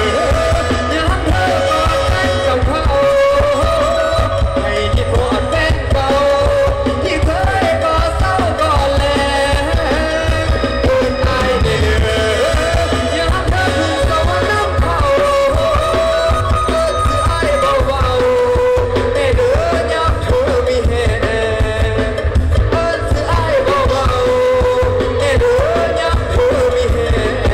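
Live band playing loud Thai folk-pop through a stage PA, with a lead voice singing a wavering melody over a heavy, steady bass and drums.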